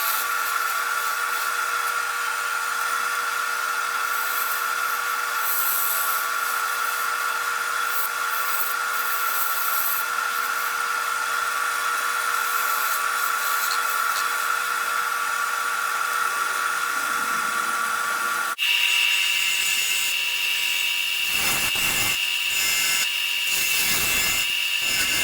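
Wood lathe running with a steady whine while a turning tool cuts into a spinning fatwood pine blank, a continuous scraping hiss. About eighteen seconds in the sound changes suddenly to a higher-pitched whine with a few pulsing cuts near the end.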